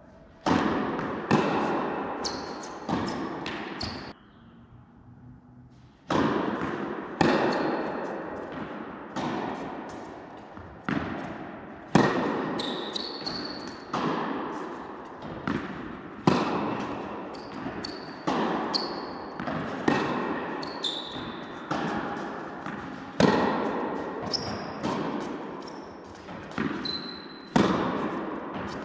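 Tennis ball struck by rackets and bouncing on an indoor court during a rally: sharp hits about every second, each echoing in the large hall. There is a pause of about two seconds near the start.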